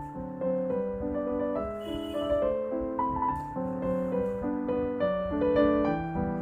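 Background piano music: a gentle melody of distinct notes over lower held notes.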